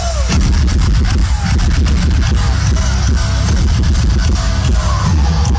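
Heavy rock band playing live through a big arena PA, heard loud and bass-heavy from inside the crowd, with dense, pounding drum hits.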